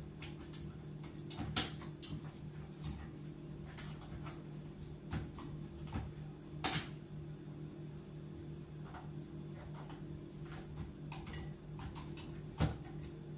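Small clicks and knocks of a salt mill's plastic parts as its stuck grinding insert is twisted and pried at by hand, with one sharp click about one and a half seconds in. The insert is jammed, which she puts down to salt getting into it. A steady low hum runs underneath.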